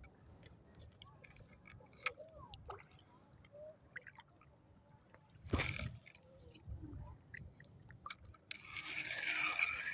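Faint lapping of shallow seawater with scattered small clicks and a sudden knock about halfway through. In the last second or so a spinning reel is cranked, a steady rasp as the line is wound in.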